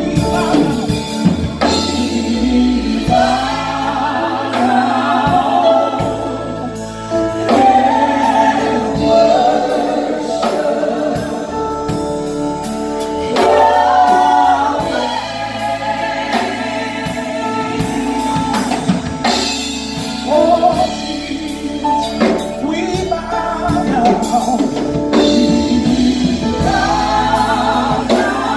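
Live gospel worship music: several singers on microphones over a band of electric bass guitar and drum kit. The singing comes in long phrases with a wavering pitch.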